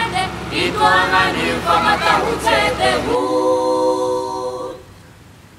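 Unaccompanied voices singing together in harmony, ending on a long held chord that stops a little before five seconds in, after which only faint hiss remains.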